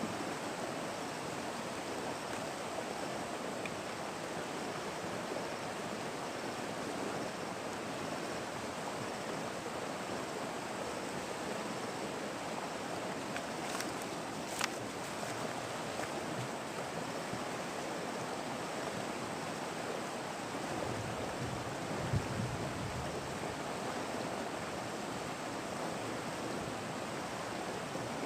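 Steady rushing of flowing river water, with two sharp clicks about halfway through and a soft low bump a little later.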